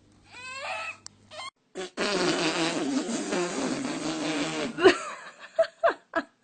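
A long, loud, raspy fart lasting nearly three seconds, followed by a few short high squeaks.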